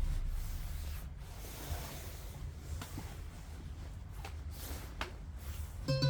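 Vinyl record surface noise in the gap between tracks, played on a turntable through loudspeakers: a low steady rumble with scattered clicks and pops. The previous piece fades out at the start and a new one with plucked guitar begins near the end.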